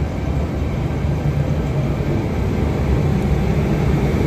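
V set double-deck electric intercity train departing, its carriages running past on the rails with a steady low rumble.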